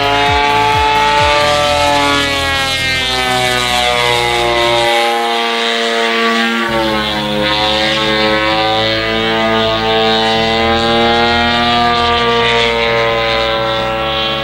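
Large-scale Extra 300 RC aerobatic plane's DLE 130cc twin-cylinder two-stroke gas engine and propeller running in flight. The engine note sinks gradually over the first several seconds, picks up again about halfway, then holds steady.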